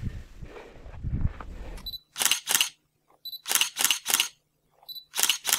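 Camera shutter sounds, each a short high beep followed by a quick double click, repeating about every second and a half from about two seconds in. Before that, wind rumbling on the microphone.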